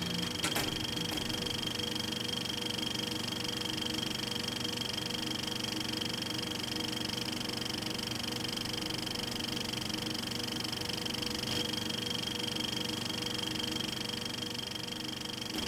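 A small fan motor running steadily: an even hum and hiss with a thin high whine that holds unchanged.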